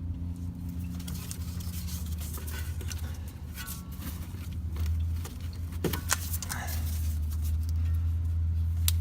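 Scattered sharp clicks and handling noises from a plastic brake pad wear sensor connector being worked by hand to squeeze its clip and pull it apart, over a steady low hum.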